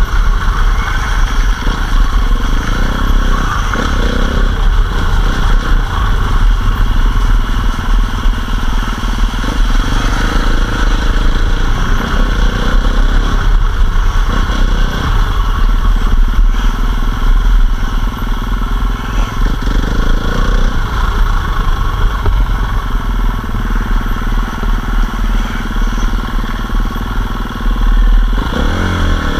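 Enduro dirt bike riding a rough forest trail, its engine rising and falling in pitch as the throttle opens and closes. Heavy wind rumble sits on the microphone.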